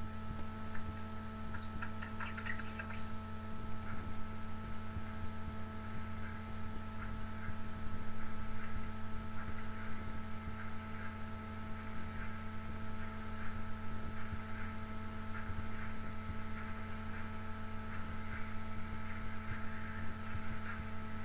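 Steady low electrical hum, with faint irregular ticks and clicks above it.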